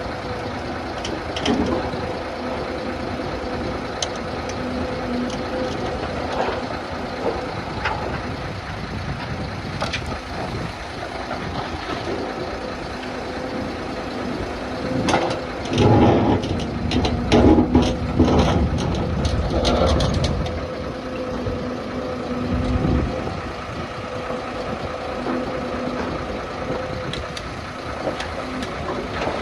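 Doosan DX hydraulic excavator running steadily with a constant engine hum and scattered knocks. About halfway through, a louder stretch of several seconds brings a heavy low rumble and a run of clanks as the machine works.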